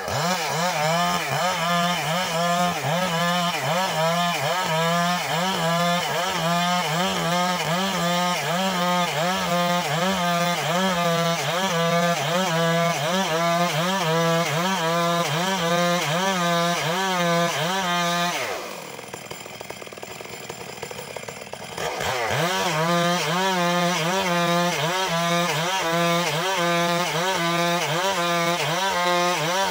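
Gasoline chainsaw ripping a suren log lengthwise, running at full throttle under load, its pitch rising and falling about one and a half times a second as the bar works through the wood. About two-thirds of the way through the engine eases off to a lower pitch for about three seconds, then picks back up to full speed and carries on cutting.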